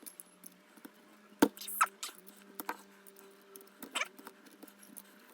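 Small scattered clicks and scratches of a metal pick working at the thick stitching of a seat belt's nylon webbing. The sharpest click comes about a second and a half in, with scraping right after and another click around four seconds, over a faint steady hum.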